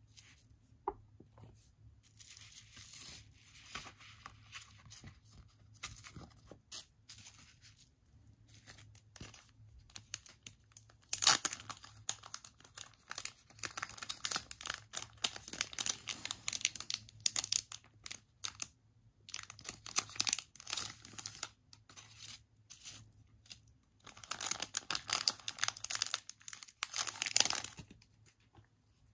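Clear plastic packaging sleeve crinkling and tearing as it is opened and an item is pulled out, in bursts of rustling with the loudest rip about eleven seconds in.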